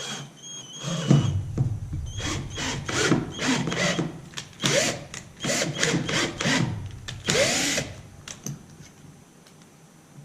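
Cordless drill with a Phillips bit driving a 10-gauge screw into a pilot hole in an inflatable boat's transom, run in a series of short trigger pulls, the motor whine rising as it spins up each time. It stops about eight seconds in.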